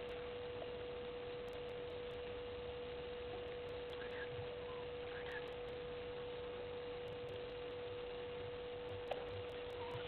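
A steady single-pitched hum, an electrical tone picked up in the live camera's audio feed, over a faint background hiss. A couple of faint short chirps come in about four and five seconds in.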